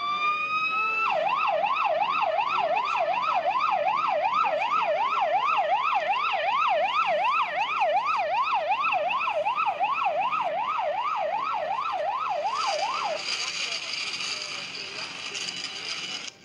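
Ambulance siren: a slow rising wail switches about a second in to a fast yelp, sweeping up and down about three times a second. The yelp stops near the end, leaving a hiss.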